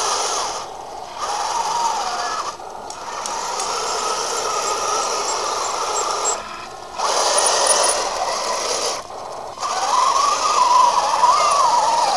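Radio-controlled model Panzer IV tank driving on grass: its electric drive motors and gearboxes whir and the tracks rattle, with a whine that rises and falls as it changes speed. The sound cuts out briefly four times as the tank stops and starts again.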